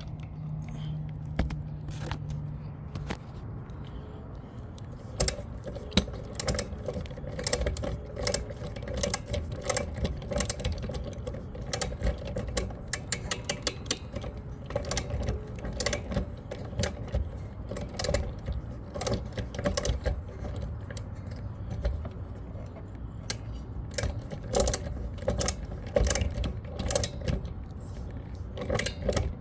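Metal hand tools clicking and rattling in quick irregular runs, the sound of a socket wrench being worked on the mower's spark plug.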